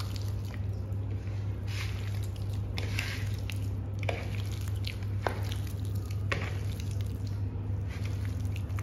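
A hand squishing and kneading raw chicken pieces in a wet spice and gram-flour coating on a plate, giving irregular short wet squelches about once a second over a steady low hum.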